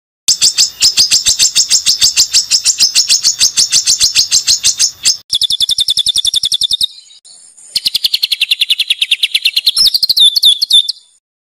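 Songbird singing harsh, rapid 'shot' phrases: high notes repeated evenly about ten a second. One long run lasts about five seconds, then come shorter runs at a lower and a higher pitch, and the last run ends in a brief falling trill.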